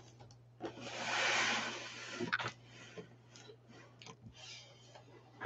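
Shrink-wrapped cardboard boxes being slid and shuffled on a desk: a scraping, rustling slide lasting about two seconds, then light taps and knocks as the boxes are set down and squared up.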